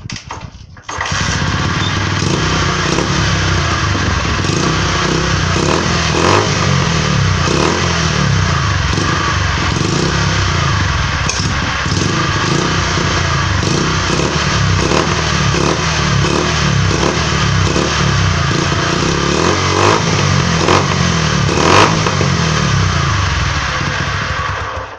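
Honda single-cylinder motorcycle engine kick-started, catching about a second in and running loud with a few short blips of throttle, then stopping near the end. Its exhaust is open, the filter (baffle) taken out of the muffler, which makes it louder.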